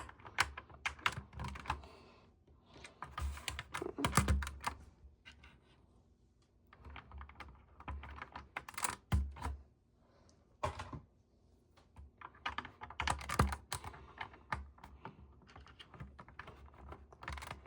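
LEGO bricks clicking and clattering in irregular clusters of small plastic clacks as pieces are handled and put away.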